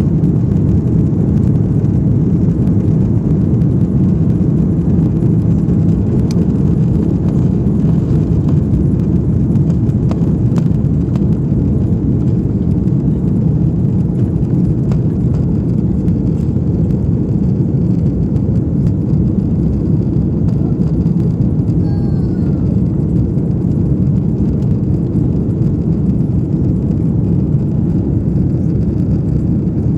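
Airliner cabin noise during the takeoff roll and climb-out: a loud, steady, deep rumble from the jet engines at takeoff power, heard from a window seat over the wing.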